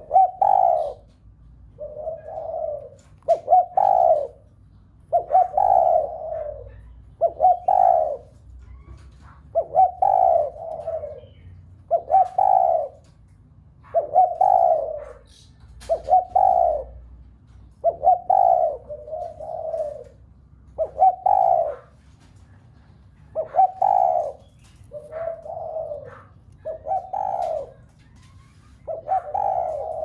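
Spotted doves cooing: short, low coo phrases repeated every second or two, without a break.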